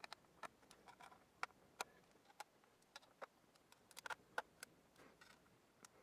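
Faint, irregular small clicks and ticks, about a dozen: a Phillips #00 screwdriver working the screws of a MacBook Pro's aluminium bottom case back in.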